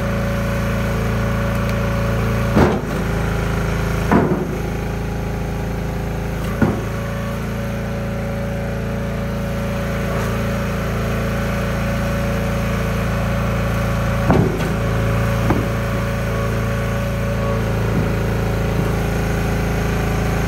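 Gas engine of a log splitter running at a steady speed, with a handful of sharp cracks and knocks over it, the loudest about three, four and seven seconds in and again around the middle.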